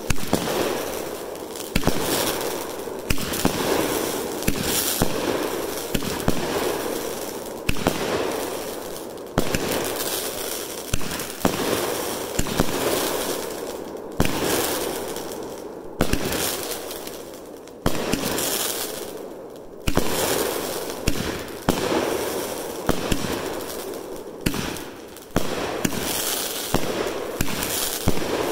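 Tako Fireworks Shimmering Willows 500g 25-shot cake firing, about one shot a second. Each shot is a sharp bang that fades away before the next.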